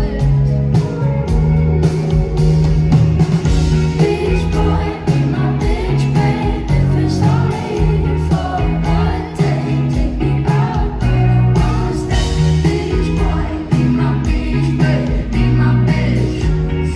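Live pop-rock band performing a song, with a female lead singer over bass, guitar and a steady drum beat.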